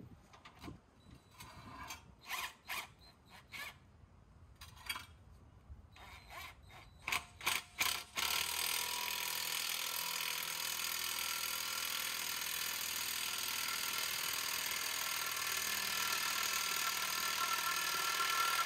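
A cordless drill turning a scissor jack's lead screw under a load, raising the vehicle. First come a few short clicks and brief starts as the drill is fitted and tried, then from about eight seconds in the drill runs steadily with a whirring, gear-like whine.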